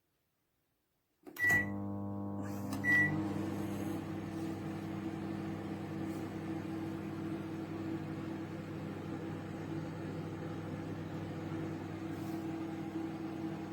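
MEDION MD 14482 microwave oven starting up and running: two short high beeps about a second and a half apart, then a steady hum and fan noise as it heats.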